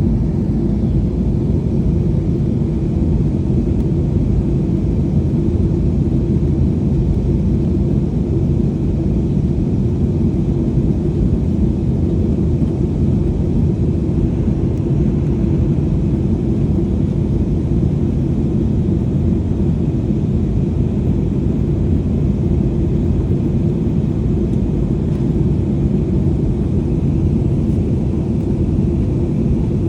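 Airliner cabin noise in flight: a steady, low rumble of engines and airflow that does not change.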